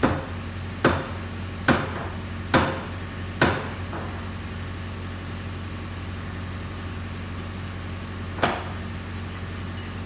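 Sledgehammer blows working the Kubota KX71-3 mini excavator's rubber track over the front idler wheel during track installation: five sharp strikes in quick, even succession, some with a short metallic ring, then a pause and one more strike near the end.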